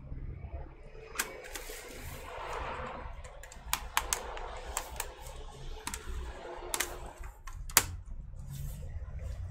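Irregular small clicks and taps of plastic laptop parts being handled and pushed during disassembly of a ThinkPad keyboard and trackpad, one sharper click near the end, over a steady low hum.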